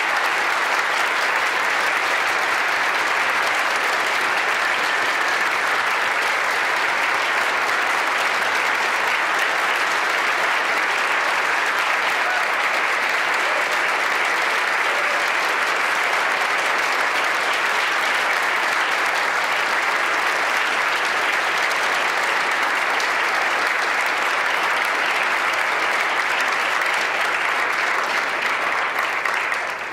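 Steady, dense applause from the audience and the choir on stage, which begins to die away right at the end.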